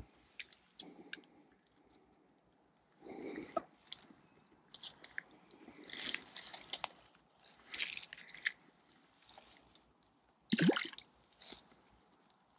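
Footsteps crunching through dry leaf litter and twigs, with brush rustling, in short scattered bursts with quiet gaps between.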